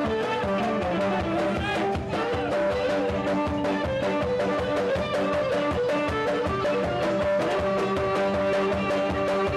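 Live Cretan folk music: a Cretan lyra playing the melody over a laouto strumming a steady rhythm.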